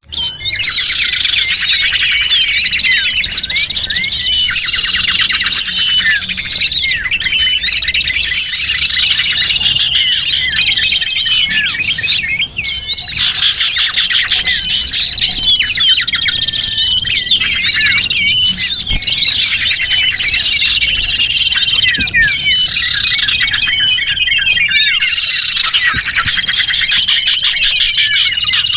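A dense chorus of many small birds chirping and twittering over one another without a break: a lure recording played to call small birds in.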